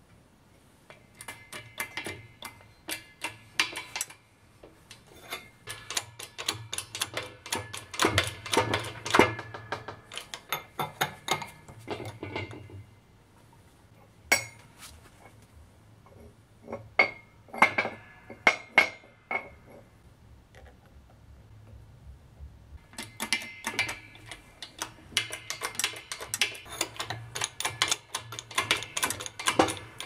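Rapid metallic clicking and clinking in several bursts of a few seconds each, from a hydraulic press and steel parts while ball bearings are pressed into a steel V-groove wheel, over a low steady hum.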